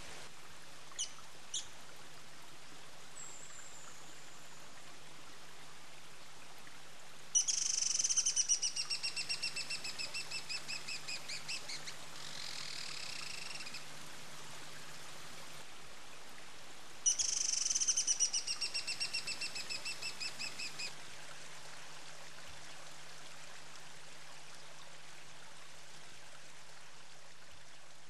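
Male Juan Fernández firecrown (hummingbird) calling in courtship display: two sharp chips, a short falling note, then two high rapid trills that slow and fade as they go, the first running on into a buzzy note.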